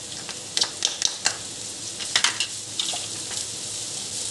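Chopped onions sizzling in hot oil in a nonstick pan, with a series of sharp clicks and scrapes of utensils on the pan as the onions are tipped in and stirred.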